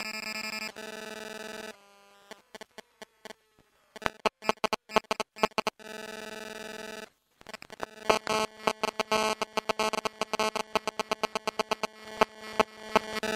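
Telephone sound effects: short steady electronic buzz tones, then bursts of rapid clicking, ending in a dense run of clicks over a continuous tone.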